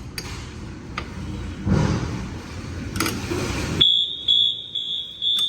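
A Wheelock MT fire alarm horn comes on about four seconds in with a high, piercing tone that pulses about twice a second. Before it there is rustling and a few sharp clicks.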